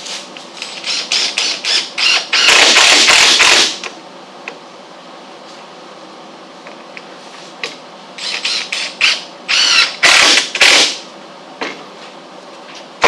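Hinge-fitting on a wooden tailgate: two spells of short knocks and brief runs of a power drill, the longest run lasting about a second, about two and a half seconds in.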